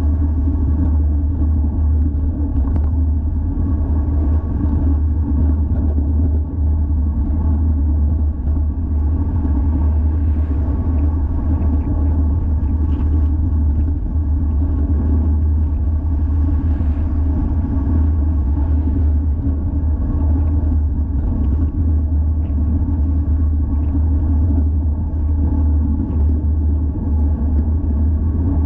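Steady low rumble of wind buffeting an action camera's microphone on a moving road bike, with a fainter hiss above it.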